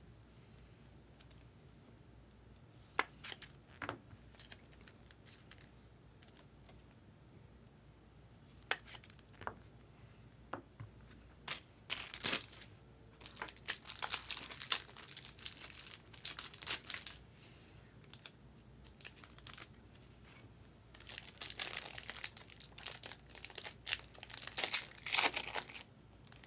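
Foil wrapper of a baseball card pack being torn open and crinkled, in repeated bursts that are busiest in the second half. A few isolated light clicks come before the tearing starts.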